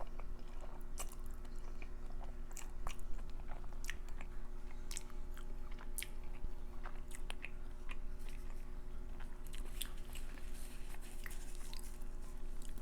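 A person chewing food close to the microphone, with many scattered sharp, wet mouth clicks.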